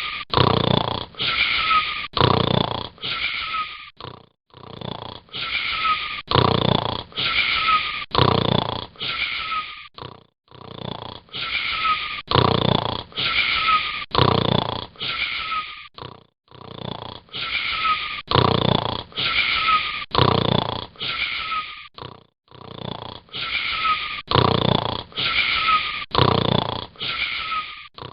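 Wheezy, rasping snoring in quick strokes about two a second, in runs of five or six broken by a brief pause roughly every six seconds. The same run repeats identically, like a looped recording.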